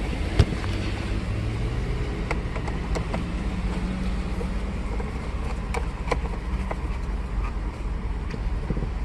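Steady low vehicle rumble with a faint hum, overlaid by scattered light clicks and one sharp click about half a second in, from handling the minivan's plastic steering-column cover and screws.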